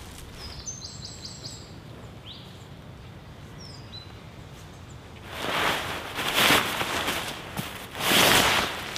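A songbird chirps a quick run of short high notes about a second in, with a few more single notes after. From about five seconds in, a tarp's fabric and its stuff sack rustle loudly in two bouts as the tarp is handled.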